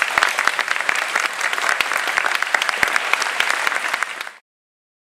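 Audience applauding, a dense crackle of many hands clapping that cuts off abruptly near the end.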